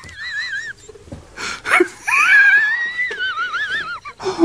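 A man in a laughing fit: high-pitched, squealing, wheezing laughter with a wobbling pitch, in a few gasps, the longest rising and then wavering from about two seconds in.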